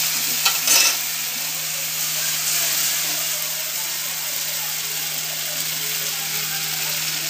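Ground masala paste frying in hot oil with mustard seeds in a kadai, a steady sizzling hiss with a brief louder burst just under a second in.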